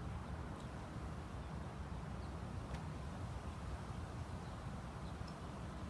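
Outdoor background noise: a steady low rumble with a few faint clicks.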